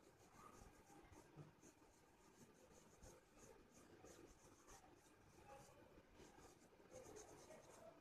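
Faint scratching of an oil pastel drawn lightly across paper in short, repeated strokes.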